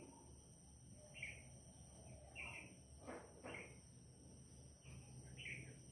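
Near silence: a marker drawing on a whiteboard, with a couple of faint strokes about three seconds in. A few short, faint bird chirps are also heard.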